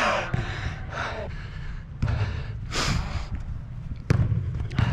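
A player breathing hard while running on artificial turf, with one sharp breath near the middle, then a sharp thud about four seconds in as a soccer ball is kicked.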